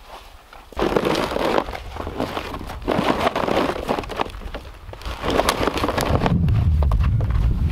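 A nylon strap is pulled and cinched over a log in a plastic sled, making uneven bursts of rustling, crackly scraping and snow crunching with a few sharp ticks. A low rumble comes in near the end.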